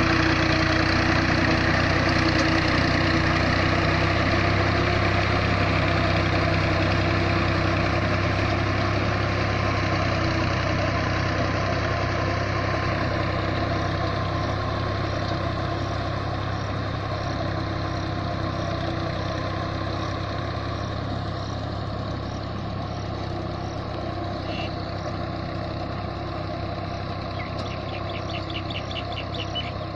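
Tractor engine running steadily under load while it pulls a puddler through a flooded rice paddy, growing gradually fainter as the tractor moves away.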